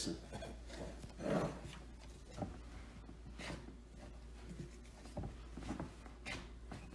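Gloved hands kneading sticky pizza dough: soft, irregular sticky rubbing sounds as the dough clings to the gloves, a little louder about a second in. The stickiness is the sign that the dough is still wet and needs a little more flour.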